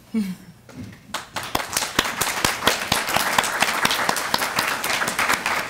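Audience applauding. The clapping starts about a second in, builds quickly into a dense, steady applause and keeps going.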